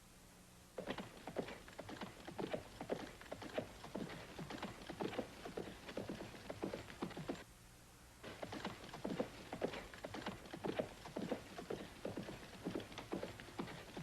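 Horse hoofbeats made by hand as a sound effect, clip-clopping in a quick, even rhythm of sharp knocks. There is a pause of about a second roughly halfway through, then the hoofbeats start again.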